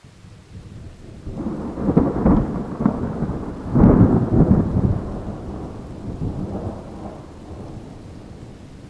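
Rolling thunder over steady rain: the rumble swells in, peaks loudest about two seconds and four seconds in, then slowly dies away.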